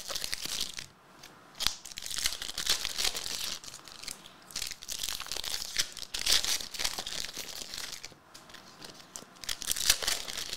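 Foil trading-card pack wrappers being torn open and crinkled by hand, in several crackly bursts with short pauses between them.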